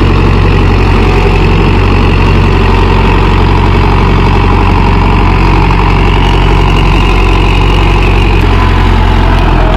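Mahindra Yuvo 585 Tech Plus 4WD tractor's diesel engine running steadily under load as it pulls a five-tine cultivator through the soil.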